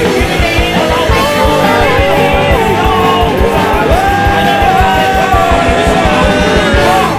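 Rock song with singing over a fast, steady drum beat, which stops abruptly near the end.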